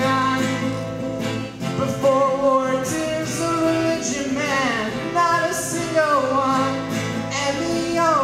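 Male voice singing a folk-style song over a strummed acoustic guitar, the sung lines coming in phrases with held, wavering notes.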